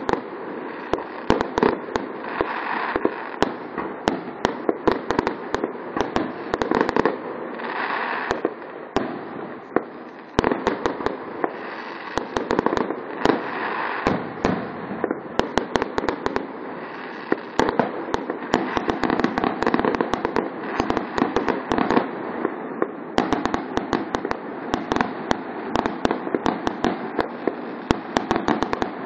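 Aerial firework shells bursting in a fast, unbroken run of many sharp bangs, pops and crackles.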